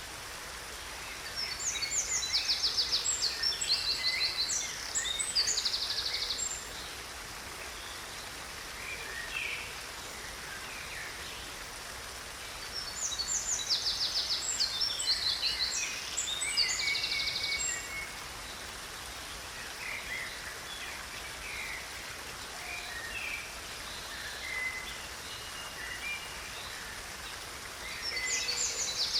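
A creek running steadily, with a songbird singing in bouts of quick, high trills: two bouts of several seconds each, and a third starting near the end.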